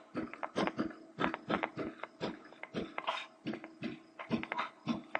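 Stylus tapping and scraping on a tablet surface in quick, irregular strokes while handwriting, over a faint steady hum.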